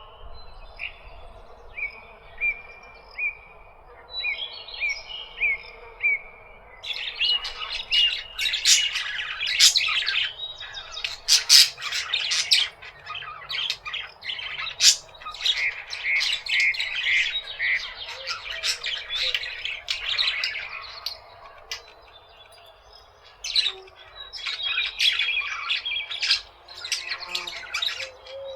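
A flock of parakeets chattering and squawking. It opens with a run of evenly spaced, falling chirps, then breaks into dense, loud chatter after about seven seconds, which thins out for a couple of seconds past the twenty-second mark and then picks up again.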